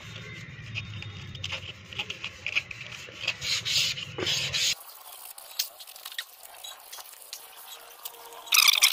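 Iron window grill being hand-sanded with 180-grit waterproof sandpaper to smooth it before painting: repeated rasping strokes that stop about four and a half seconds in. A brief loud, high sound near the end.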